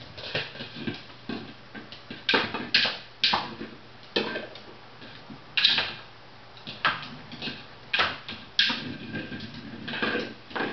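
Hard plastic Jolly Egg dog toy knocking and scraping across a tile floor as a small dog pushes and bites at it, with the dog's claws clicking on the tiles. The knocks come irregularly, several a second, the loudest a couple of seconds in and again just past the middle.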